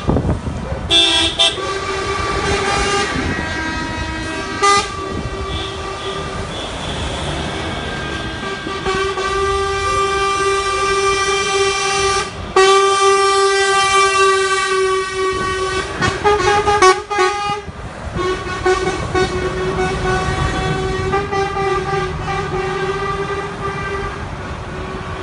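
Truck air horns blown in long held blasts, several tones together, almost without pause as a convoy of trucks drives past, with the trucks' diesel engines running underneath. The horns break off briefly about a second in, about halfway, and again near the two-thirds mark.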